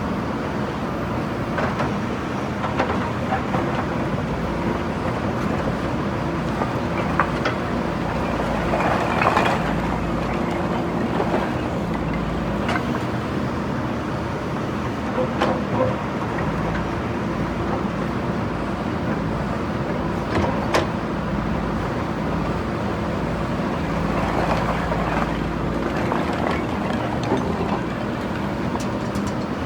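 JCB backhoe loader's diesel engine running steadily under work, with several sharp knocks and crunches scattered through it as brickwork is broken down.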